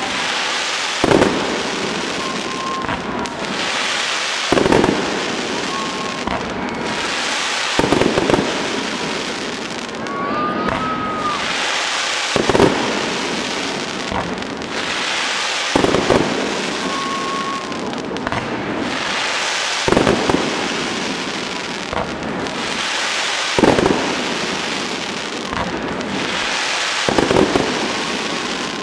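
Fireworks salute: eight loud booming bursts of aerial shells, about one every three and a half to four seconds, with crackling and hissing between them.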